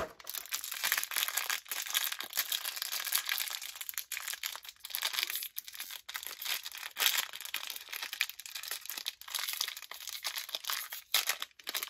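A small toy blind-bag wrapper crinkling and crackling as it is handled and worked open by hand, in a dense, continuous run of crackles.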